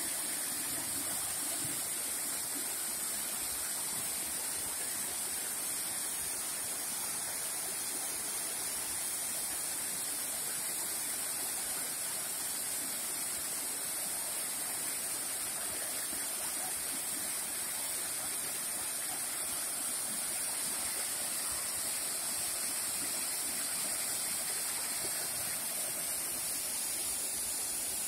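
Waterfall and the rocky cascade of the mountain stream below it, rushing steadily: an even, unbroken hiss of falling water.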